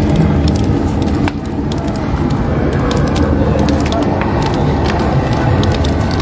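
A steady low rumble with scattered sharp crackles from a fire of burning tyres and wood.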